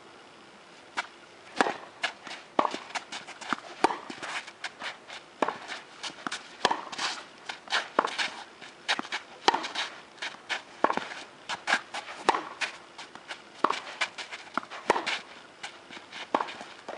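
Tennis rally: the racket strikes the ball with sharp pops about every second and a half, with quieter clicks of ball bounces and footsteps on the court in between.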